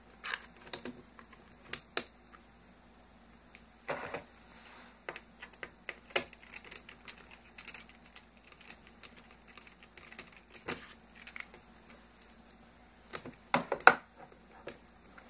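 Light, irregular clicks and taps of small hand work on a laptop: a screwdriver and tiny screws knocking against the laptop's plastic casing. There are louder clusters of clicks about four seconds in and again near the end.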